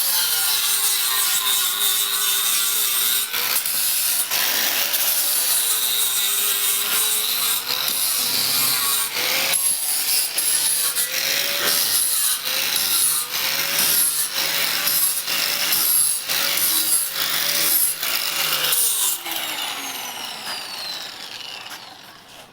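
Angle grinder grinding iron, with a harsh, steady grinding noise. Its motor pitch dips and recovers again and again as the disc is pressed into the metal. Near the end it is switched off and the motor winds down, its pitch falling.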